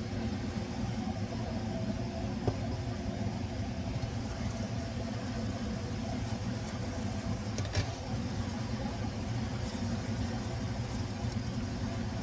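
A steady low hum runs under a skillet of stir-fry cooking on the stove. A silicone spatula stirs the pan, with two light knocks about two and a half and eight seconds in.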